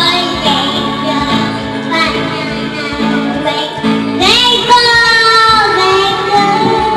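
A young child singing into a karaoke microphone over a videoke machine's backing music.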